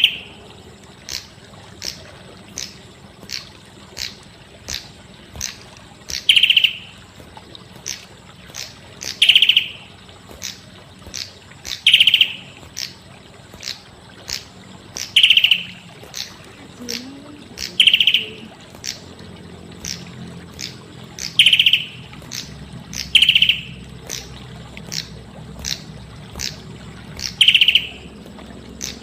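Prenjak kepala merah, a small Indonesian songbird, calling: a loud, full note high in pitch, repeated about every three seconds. Between the calls runs a quick, even series of sharp ticks, a little more than one a second.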